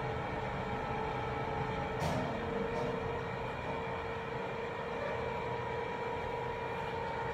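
Cab noise of an LG high-speed passenger elevator travelling up and arriving at its floor: a steady hum over a rushing air noise. A short click about two seconds in.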